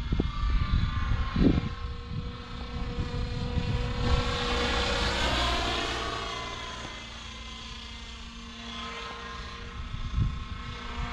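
Align T-Rex 650X electric RC helicopter in flight: the steady whine of its motor and main rotor. The whine swells as it comes closer about four seconds in, then fades as it moves further off.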